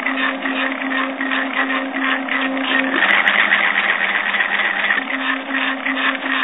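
Stepper motor of a linear actuator running, driving a threaded rod lengthwise through its 3D-printed housing. It gives a steady motor whine with a buzzy rattle. About halfway through, the steady tone gives way for a couple of seconds to a rougher, slightly louder buzz, then returns.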